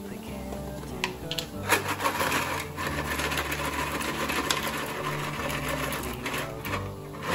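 Water at a rolling boil bubbling and crackling in a saucepan, while dry farfalle pasta is tipped in from a container, its pieces dropping into the water about halfway through.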